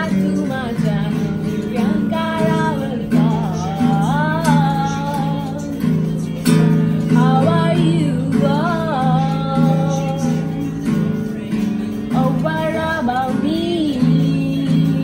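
A woman singing in phrases while strumming an acoustic guitar.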